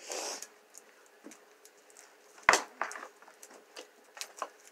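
Close handling noises: a short rustle at the start, then a sharp knock about two and a half seconds in and a few lighter clicks and taps after it.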